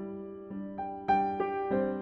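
Background music: a gentle piano or keyboard melody, a new note struck about every third of a second over held lower notes.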